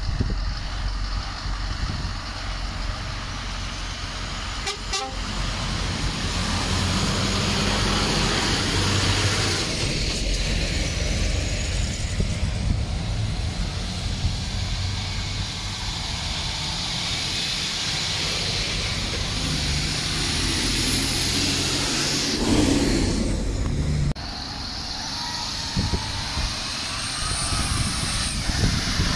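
Lorry diesel engines running as heavy trucks drive past, their low engine note rising and falling, with a broad rush of tyre and air noise over it.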